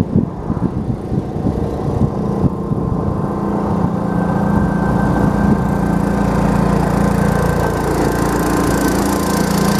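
John Deere garden tractor's engine running as the tractor drives up, growing louder over the first five seconds and then holding steady.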